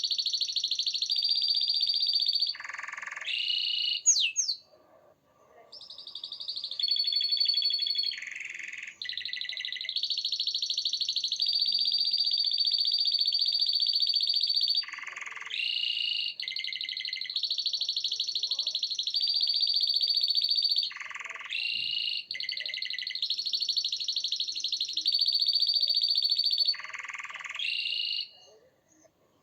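Domestic canary singing: long phrases of rapid, rolling trills, each held for a few seconds before switching to another pitch. The song breaks off briefly about four seconds in and again near the end.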